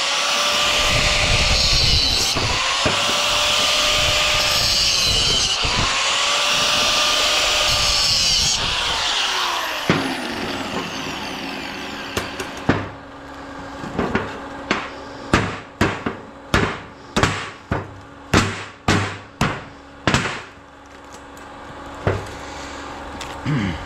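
Angle grinder cutting into a delaminated transformer, its motor pitch dipping under load and recovering three times, then spinning down about ten seconds in. After that comes a run of about a dozen sharp metal strikes, roughly two a second, over a low steady hum.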